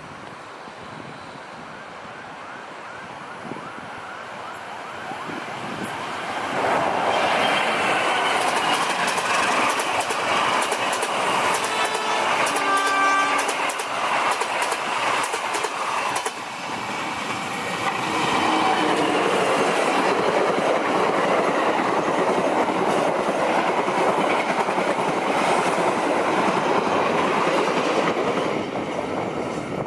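Locomotive-hauled passenger trains passing close by. Their rumble and wheel clatter build up over the first several seconds and stay loud, and a second train follows on after a brief dip in the middle. A train horn sounds once for about a second and a half, about twelve seconds in.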